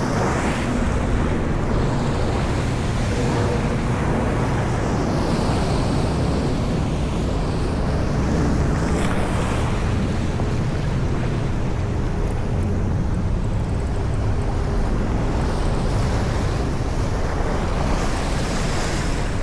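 Steady wind noise on the microphone mixed with sea swell washing against the shore.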